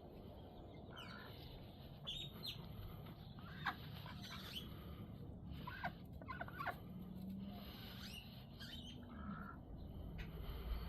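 Birds calling: a scattering of short, sharp chirps that drop in pitch, over a low steady background.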